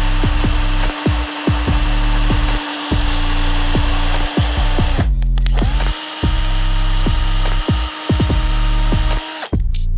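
Electric power tool motor running steadily over a hiss. It stops about five seconds in, starts again a second later, and cuts off again near the end. Rhythmic music with a steady beat plays along with it.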